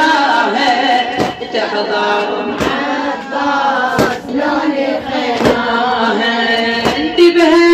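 A mullaya singing an Iraqi Shia latmiya mourning chant with a group joining in. Sharp rhythmic beats fall about every second and a half, in time with the chant, the beat of the lamentation.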